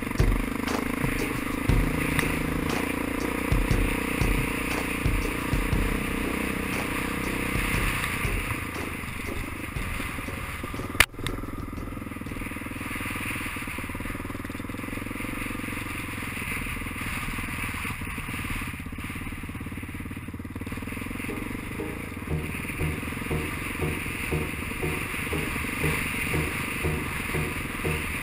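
Off-road motorcycle engine running under way, heard from a camera mounted on the bike. There is a single sharp crack about eleven seconds in.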